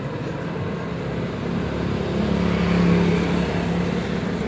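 A motor vehicle's engine running nearby, growing louder about two seconds in and easing off a second and a half later.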